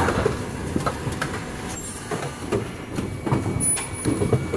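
Automatic N95 cup mask production line running: a busy, irregular clatter of knocks and clicks from its moving parts over a steady low rumble, with a louder burst about two seconds in.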